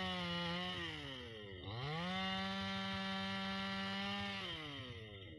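Two-stroke chainsaw engine running at high speed. About a second in, its pitch drops sharply and climbs straight back up; it holds steady, then falls away again near the end as the revs come down.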